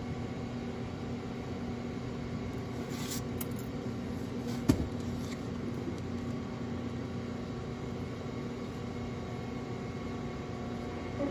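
Steady mechanical hum with several fixed tones, like a fan or appliance running, with a brief rustle about three seconds in and one sharp click a little later.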